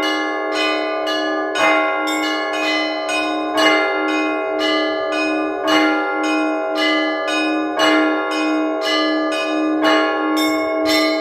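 Russian Orthodox church bells rung by one bell ringer, a peal calling the faithful to prayer. Smaller bells are struck in a quick pattern, about three strikes a second, over a deeper bell struck about every two seconds, its low tone ringing on throughout.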